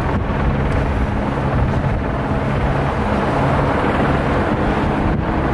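Freeway traffic passing: a steady wash of vehicle noise with a low engine hum underneath.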